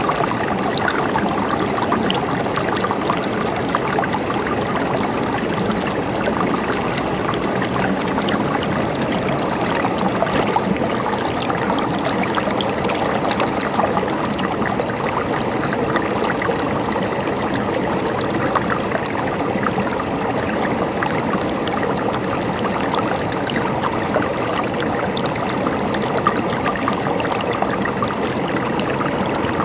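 Stream water flowing and trickling, a steady babbling rush with no pauses.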